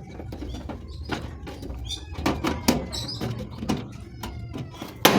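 Chickens calling and clucking in short bursts, with scattered knocks.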